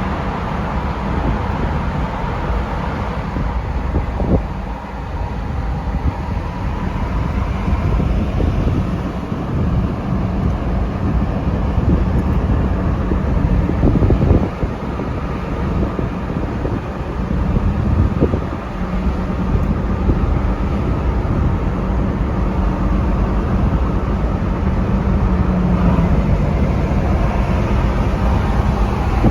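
Steady road and engine rumble heard from inside a moving car, with a few faint knocks and some wind noise.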